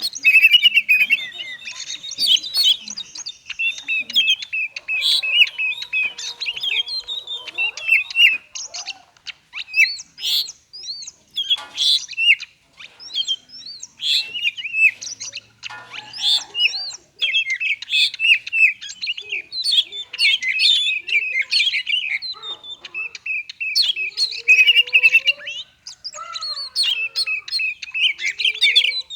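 Oriental magpie-robin singing a fast, jumbled 'konslet'-style song of rapid chirps and whistles, in bursts broken by short pauses.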